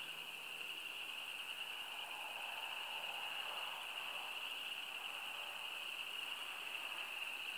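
A steady, continuous high-pitched trilling drone at night, unchanging throughout, which the recorder likens to tree frogs calling on a cold winter night but cannot identify.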